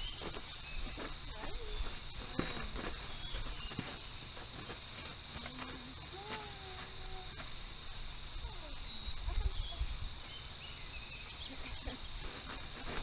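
Insects chirping in a steady, high, even trill, with scattered soft rustles and footfalls as a foal and a handler walk across a tarp strewn with plastic.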